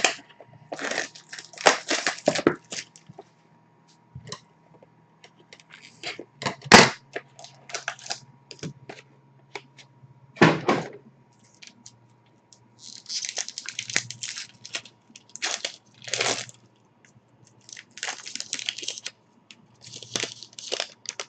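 Hockey card box and pack being opened by hand: scattered clicks and snaps of card and packaging, then bursts of crinkling and tearing wrapper about two-thirds of the way through.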